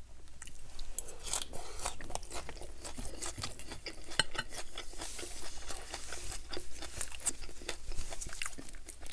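Close-miked crunchy chewing of a mouthful of shredded leafy salad: irregular crisp crackles and crunches all the way through.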